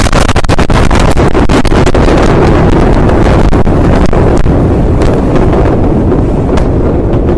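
Blast wave of a huge ammonium nitrate explosion hitting a phone microphone, overloading it: a steady loud rushing rumble with many sharp cracks and clatters of flying debris, easing slightly near the end.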